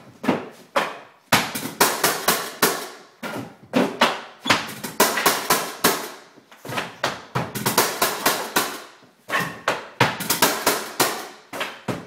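Flooring nailer struck with a mallet, driving nails into hardwood strip flooring: a fast run of sharp bangs, two or three a second, with a couple of brief pauses.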